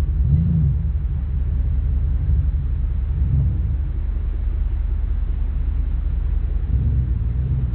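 Low, steady rumble of a 2001 Dodge Ram 2500's 5.9-litre Magnum V8 running.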